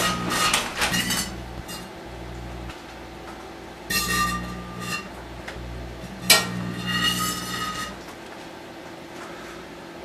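Microwave oven running with a steady low hum, broken three times by loud buzzing crackles from the paperclip arcing inside a glass bottle: near the start, about four seconds in, and with a sharp snap just after six seconds. Each lasts a second or two.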